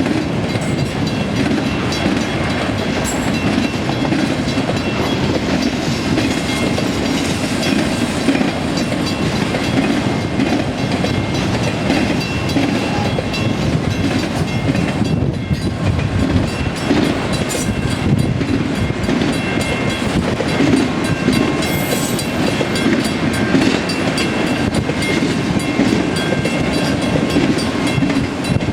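Freight cars of a mixed autorack train rolling past, wheels clacking over the rail joints in a steady, continuous rumble.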